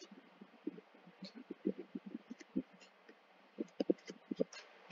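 Faint, irregular clicks and taps of a stylus on a tablet screen while a diagram is drawn.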